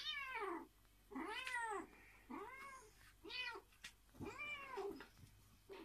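A cat giving angry meows, five drawn-out calls about a second apart, each rising and falling in pitch: a cat protesting at a beagle pestering it.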